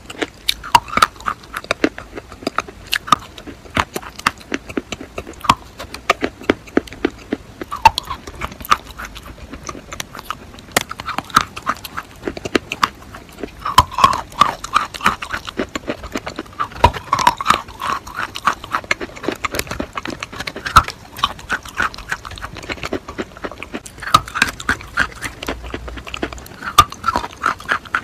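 Close-up crunching and chewing of school chalk: a dense run of sharp, crackling crunches as the chalk is bitten off and broken up between the teeth, mixed with wet mouth sounds.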